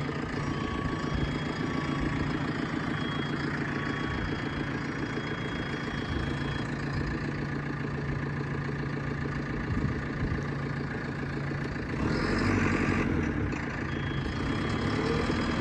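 JCB 3CX backhoe loader's diesel engine running steadily while the machine is driven to test its four-wheel drive. The engine gets louder for about a second and a half, some twelve seconds in.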